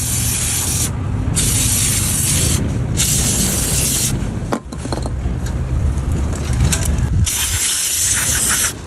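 Aerosol lubricant spray hissing out of the can in a series of bursts, each a second or two long with short breaks between, over a low rumble.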